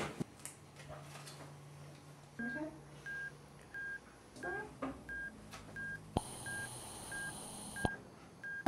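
Heart monitor beeping steadily, short high beeps at about three every two seconds, starting a couple of seconds in, following the pulse of a patient just wired up with ECG electrodes. About six seconds in a click starts a hiss with a thin high whine, which stops with another click near the end.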